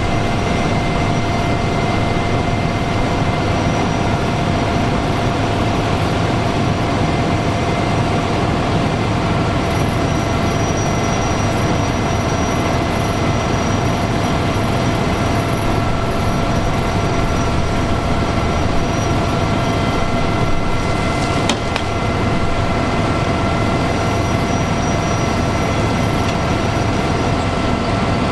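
Fire pumper's engine running at high revs to drive its water pump during firefighting: a loud, steady drone with several constant whining tones over it.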